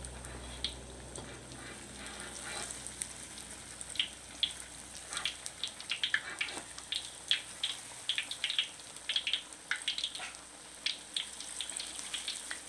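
Battered banana slices deep-frying in hot oil in a wok at medium heat: a steady sizzle with sharp crackles and pops, which come thicker and faster after about four seconds.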